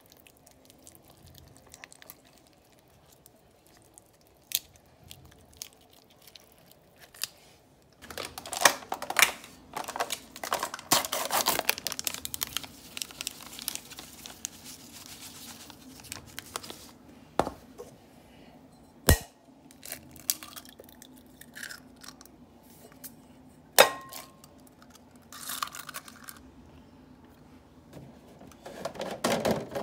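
Food-prep handling sounds: intermittent crinkling and rustling of wrapping or paper, busiest after about eight seconds, with scattered clicks and a few sharp knocks. A faint low steady hum runs underneath from about eight seconds in.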